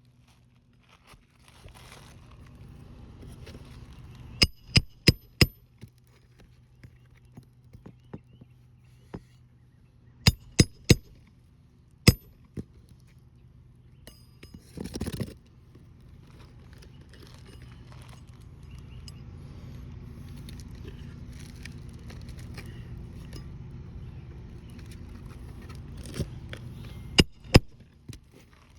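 Hammer driving roofing nails into an asphalt shingle: quick runs of sharp metal strikes, four in a row, then three, then a few more near the end. A steady low hum runs underneath.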